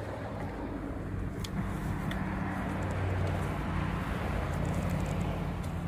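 A steady low engine hum with a few faint light clicks.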